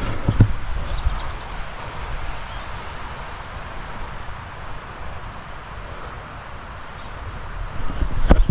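Wind rushing over the microphone, with a low rumble and gusty thumps just after the start and again near the end. A few faint, short high chirps sit above it.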